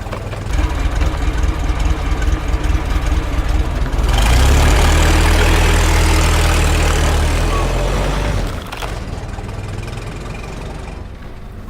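A heavy engine running with a low, steady drone. It grows louder and rougher about four seconds in, then drops back to a lower, steadier run a few seconds before the end.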